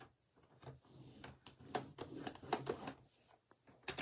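Paper trimmer's scoring blade drawn down along a sheet of cardstock to score the fold line: an uneven run of small scratching ticks and rasps, ending in a click near the end.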